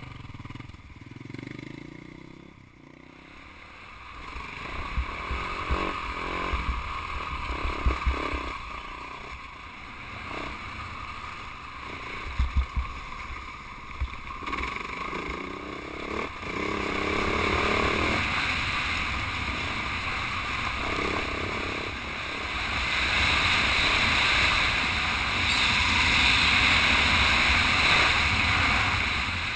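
Husaberg 450 FE single-cylinder four-stroke dirt bike riding a rocky gravel track, its engine running under the rush of wind on a helmet-mounted camera. Scattered sharp knocks come through in the middle stretch, and the wind rush grows louder and steadier in the last third.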